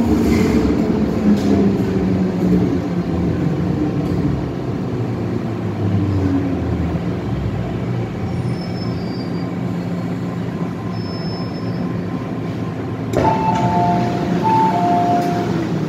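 MTR M-Train running through a tunnel, its traction motor whine falling in pitch as the train slows into a station. About 13 s in, a two-note electronic chime sounds twice.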